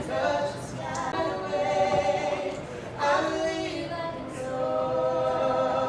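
Background music of a choir singing together, holding long notes and moving between them.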